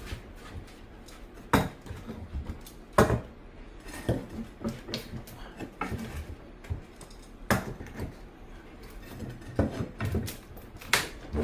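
Steel flat bar prying up old hardwood floorboards held by hand-driven cut nails: irregular sharp knocks and metal clinks against the wood, about seven louder strikes spread a second or two apart.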